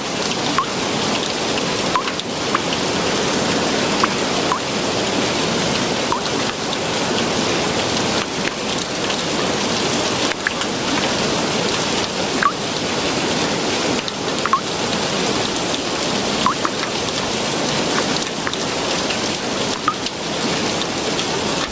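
Steady rain falling, with occasional single drops plinking.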